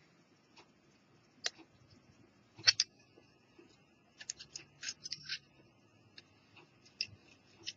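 Small scattered clicks, taps and scrapes as the plastic case and circuit board of a disassembled Panasonic portable cassette player are turned in the hands and scrubbed with a cotton swab to clean off verdigris. The sharpest click comes just under three seconds in, and a quick run of clicks follows about four to five and a half seconds in.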